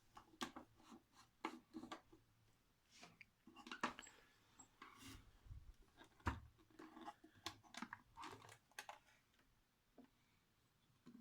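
Faint, irregular clicks, scrapes and light knocks of things being handled, with a couple of soft low thumps midway.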